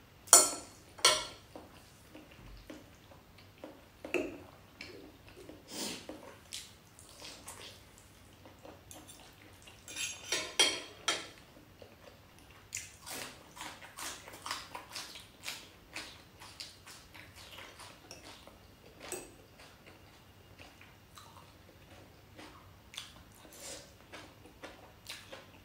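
Close-up mukbang eating sounds: a fork and spoon clinking and scraping in a bowl of spicy noodles, with chewing, in scattered sharp clicks. The loudest clinks come near the start and in a cluster about ten seconds in.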